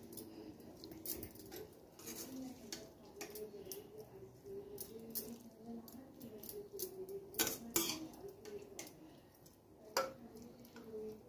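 A metal spoon clinking and scraping against the inside of a metal pressure cooker pot as mutton and fried onions are spooned onto a layer of rice, with scattered light knocks, a few louder ones about two-thirds of the way through and near the end.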